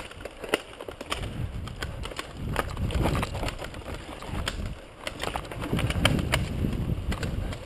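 Mountain bike riding fast down a rough forest trail: a low rumble of tyres over dirt and rock, with frequent sharp clicks and knocks as the bike rattles over roots and stones.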